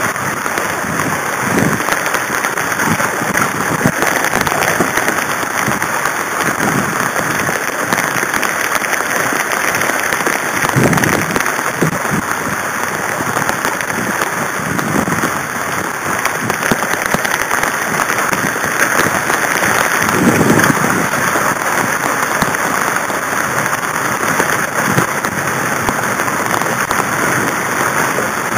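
Heavy rain and wind on a Hobie catamaran: a loud, steady hiss of drops pattering on the boat and camera, with a few deeper whooshes of gusts or water surging against the hulls now and then.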